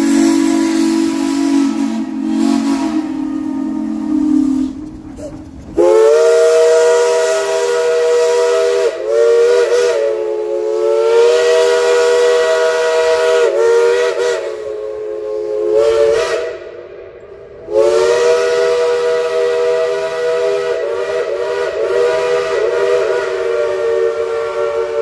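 Shay steam locomotive whistles blowing long blasts. A lower-pitched whistle chord sounds for the first four seconds or so. Then a higher, several-note chime chord is held for about ten seconds, wavering slightly in pitch, breaks off briefly and sounds again for about seven seconds.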